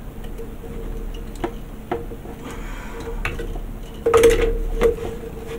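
Hard plastic model kit parts being handled, giving scattered light clicks and taps, with a louder cluster of knocks about four seconds in. A faint steady hum runs underneath.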